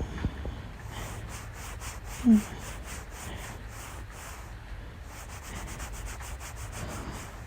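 Fabric rubbing against the microphone in quick repeated strokes, the cloth and pillow noises of a simulated hug. About two seconds in there is one short voiced hum.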